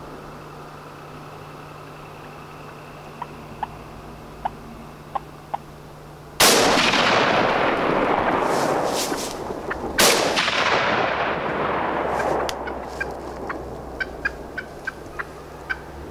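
Wild turkeys clucking softly, then two shotgun shots about three and a half seconds apart, each dying away slowly. Sharp alarm putts and clucks from the turkeys follow.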